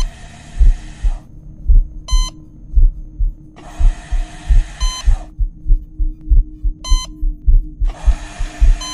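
Sound-design heartbeat: deep double thumps that speed up. Short electronic patient-monitor beeps come every two to three seconds, with three long hisses between them.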